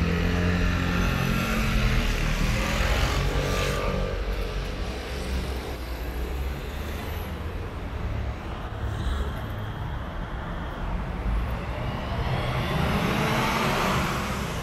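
Road traffic: cars passing close by on the street, engines and tyres swelling then fading, one near the start and another about twelve seconds in, over a steady low traffic rumble.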